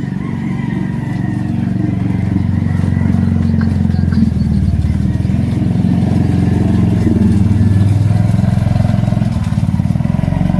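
A motor vehicle engine running steadily close by.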